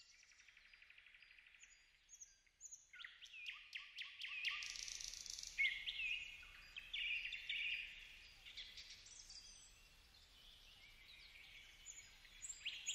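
Forest birds chirping and calling: many short, high chirps and whistles overlapping, quiet, starting about three seconds in.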